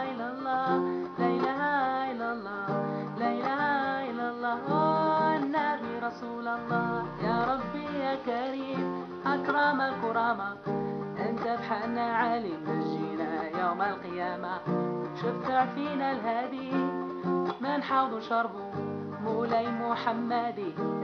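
Music: a song in a style inspired by Moroccan Gnawa and Sufi music, with plucked strings and a melodic line that keeps changing note.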